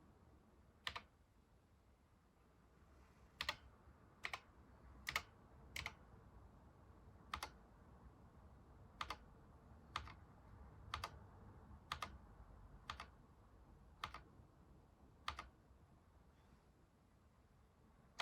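Keys of a Sharp MZ-80K2E computer keyboard pressed one at a time, slowly and deliberately: about thirteen separate clacks, roughly one a second with some short pauses, as monitor commands are typed in.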